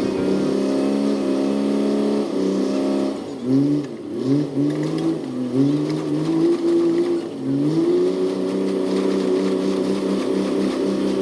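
An engine running under changing load, its pitch dropping and rising several times in the middle before settling to a steady note.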